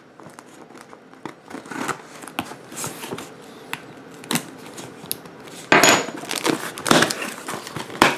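A cardboard shipping box wrapped in packing tape being cut and pulled open by hand: scattered scrapes and knocks, with louder tearing and crinkling of tape and cardboard about six and seven seconds in.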